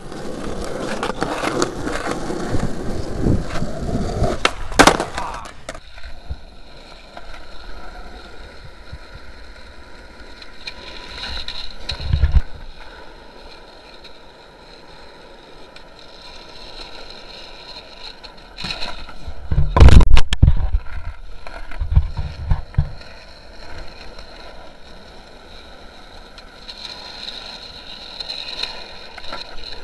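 Skateboard wheels rolling on rough asphalt, loud for the first five seconds, then quieter. Several clacks and thuds of the board hitting the pavement break in, the loudest about twenty seconds in.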